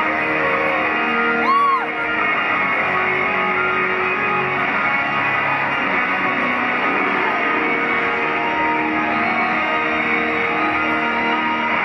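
Live heavy metal band's electric guitars holding sustained, ringing notes that change every second or two, with no drumbeat, heard through a phone in the audience. A short whistle rises and falls once, about one and a half seconds in.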